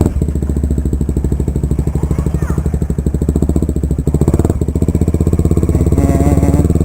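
Kawasaki Ninja 250 Mono's single-cylinder four-stroke engine running through an aftermarket Akrapovic exhaust, a loud, steady, rapid pulsing beat with a brief dip about four seconds in.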